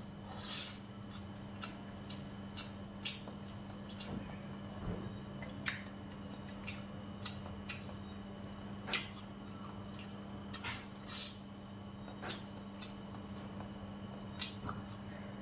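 Close-up eating sounds: chewing and wet mouth smacks with scattered light clicks of a spoon and chopsticks on dishes, over a steady low hum.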